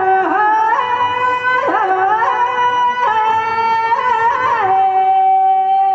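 A woman singing a Rajasthani Teja folk song in long wordless held notes, stepping between a few pitches with short glides. Near the end she settles on one long sustained note.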